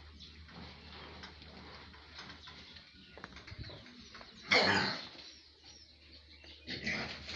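Pigs in a pen: two short, noisy squeals, the louder about four and a half seconds in and a weaker one near the end, over faint rustling and clicks.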